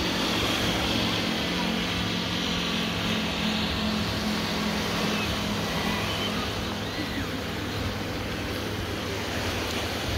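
Small waves washing onto a sandy beach, with wind on the microphone and a steady low hum underneath.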